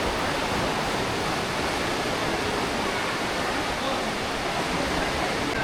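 The Aare River rushing through a narrow rock gorge: a steady, unbroken wash of water.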